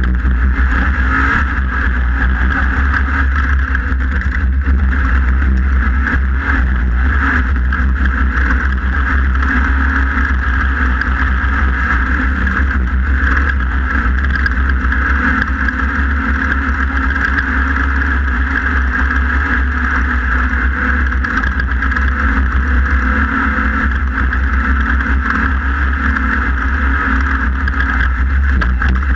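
Engine of a 1600-class off-road race car running hard, heard on board at racing speed: a loud, steady drone with no letup.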